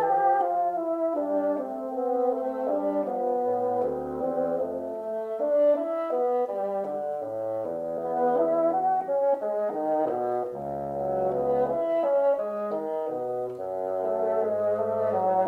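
Background music with brass instruments playing several parts together in moving chords, the notes changing in steady steps.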